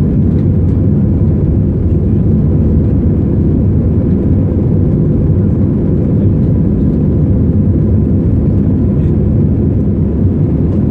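Airbus A320 engines and airflow heard inside the cabin during the climb after takeoff: a loud, steady, low-pitched noise that does not change, with a faint steady whine above it.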